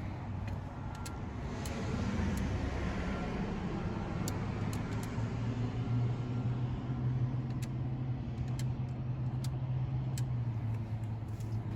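A car engine running close by: a steady low hum that grows louder about halfway through, with traffic noise behind it.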